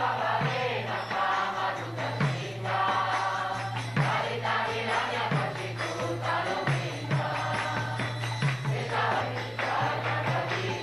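A group of voices singing a devotional kirtan chant together, with regular drum strokes and jingling percussion keeping the beat.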